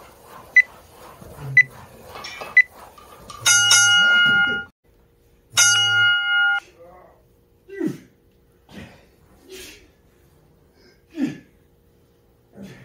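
Gym interval timer giving three short beeps about a second apart, then two long buzzes, marking the end of a work interval and the change to the next station. A few short, sharp exhalations follow.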